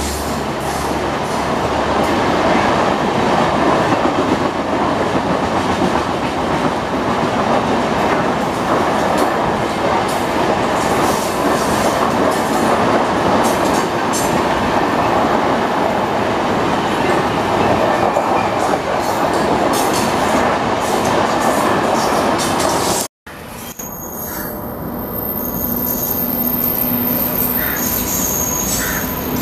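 Passenger coaches running past at speed, wheels clattering over the rail joints with a dense rumble. About 23 s in, the sound cuts to an ALCO WDM-3A diesel locomotive approaching on a curve, its engine running with a steady low hum and its wheels giving a thin, high squeal.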